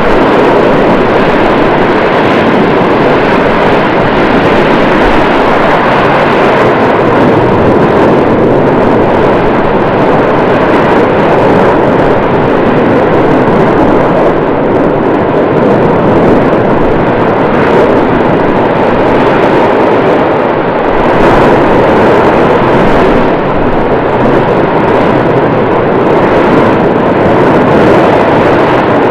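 Volcanic eruption heard as a loud, steady roar, without separate blasts.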